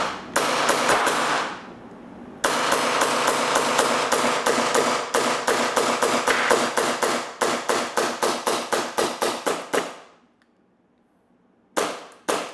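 Upgraded Tokyo Marui Hi-Capa gas blowback airsoft pistol firing on green gas, its slide cycling with each shot. A few shots come first, then a fast string of about four to five shots a second lasting several seconds, then two more shots near the end. The short-stroke kit gives a quick, snappy cycle.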